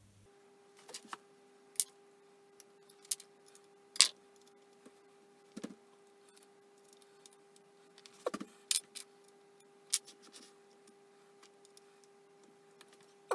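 Irregular metallic clicks and clinks of steel parts and hand tools being handled while the tailstock of a Myford ML10 lathe is fitted to the bed, the sharpest about four seconds in and a quick cluster a little past the middle. A faint steady hum runs underneath.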